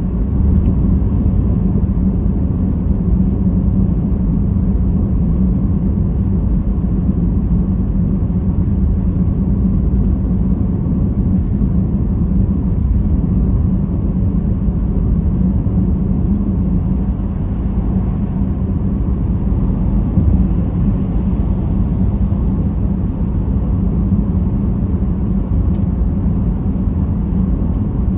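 A car driving: a steady low rumble of engine and road noise with a constant low hum, unbroken throughout.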